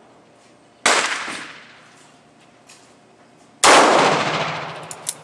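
Two handgun shots about three seconds apart, each dying away with a long echo. A few faint sharp ticks follow near the end.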